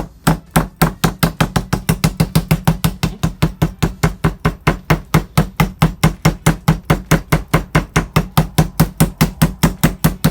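Novelty Thor's Hammer (Mjolnir) meat tenderizer pounding a raw steak, a rapid even run of blows at about five a second.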